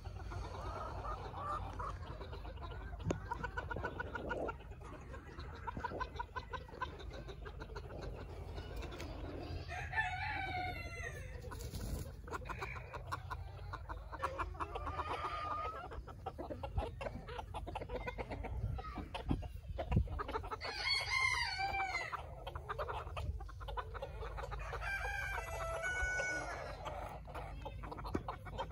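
Backyard chickens clucking, with a rooster crowing three times: once about a third of the way in and twice near the end.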